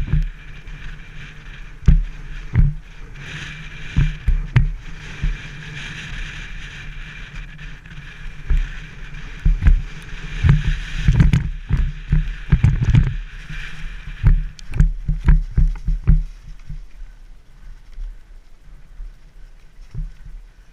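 Mountain bike descending a rough forest trail, heard from a helmet-mounted camera: wind rushing over the microphone with a steady high buzz, and frequent sharp knocks and rattles as the bike hits bumps. The knocks die away after about three quarters of the way through.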